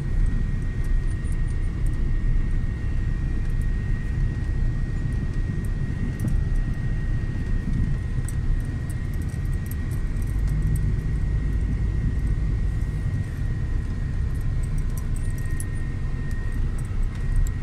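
Car driving along, heard from inside the cabin: a steady low engine and road rumble, with a thin steady high-pitched whine above it.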